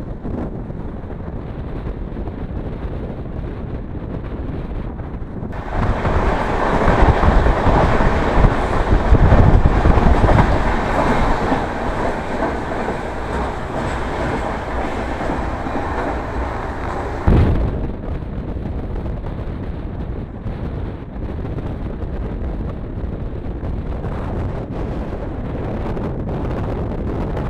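Indian Railways express coach running at speed, heard from its open doorway and window: a steady rumble of wheels on the track. A louder, harsher stretch starts suddenly about five seconds in and stops just as suddenly around seventeen seconds.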